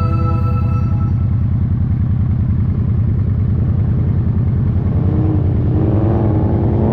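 Motorcycle engine running steadily under way, a low, evenly pulsing rumble. Music fades out about a second in, and another track fades in faintly near the end.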